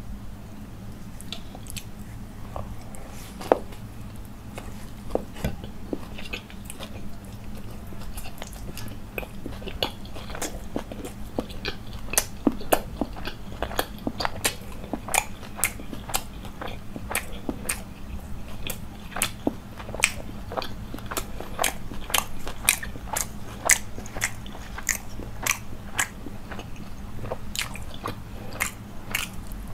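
Close-miked eating sounds: a man chewing and biting a chicken roll (a paratha wrap with chicken filling), with many sharp, wet mouth clicks that come thicker in the second half, over a low steady hum.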